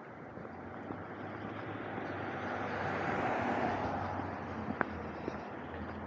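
A car passing by on the road, its sound building to a peak about three seconds in and then fading away.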